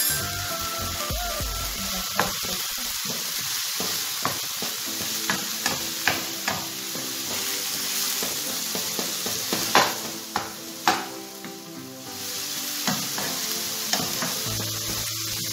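Diced chicken breast, onion and spices sizzling in a nonstick frying pan while a wooden spoon stirs them, with scrapes and knocks of the spoon against the pan. The two loudest knocks come about a second apart, a little past the middle.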